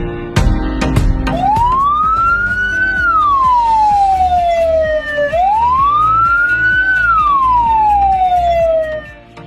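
Ambulance siren wailing through two slow cycles, each rising for about a second and a half and then falling for about two seconds, over background music.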